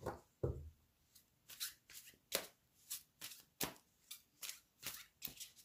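A deck of oracle cards being shuffled by hand, overhand style: a run of soft, quick card strokes about three a second, after two duller knocks at the start.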